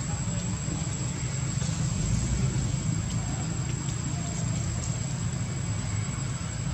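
Steady low rumble of outdoor background noise, with a thin, steady high-pitched whine above it and a few faint ticks.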